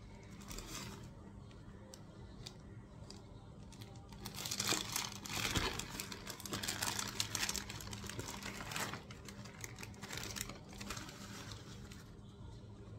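Plastic packaging crinkling and rustling as grey plastic wrap is pulled off a cardboard box, in irregular handling noises that are loudest from about four to eight seconds in.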